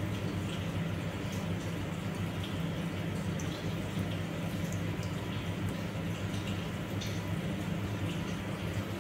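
Steady low electrical hum from the heated flask apparatus, with faint trickling water and scattered light ticks, the kind of sound a heating mantle and a water-cooled condenser make while running.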